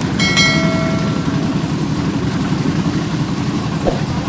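An old diesel engine driving a cement mixer runs steadily with a fast, even low chug. Just after the start a brief metallic ring sounds over it and fades within about a second.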